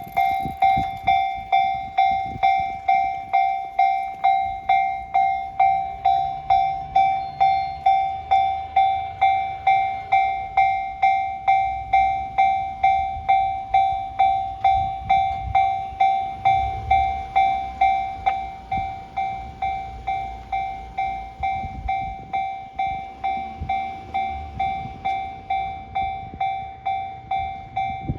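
Japanese level crossing's electronic warning bell ringing in a fast, even rhythm of nearly two dings a second. Under it is the low rumble and wheel clatter of a train passing over the tracks.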